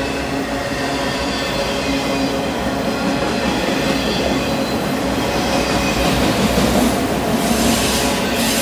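Freight train of autorack cars rolling past close by: a steady rumble of steel wheels on rail, with a brighter hiss building from about seven seconds in.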